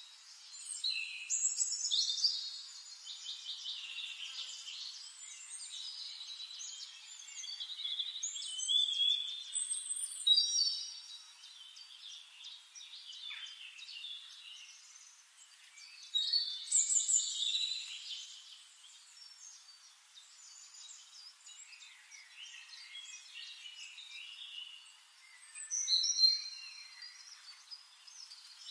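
Birds calling: bursts of high, chattering, squeaky calls, loudest about two, ten, seventeen and twenty-six seconds in, with quieter calling between.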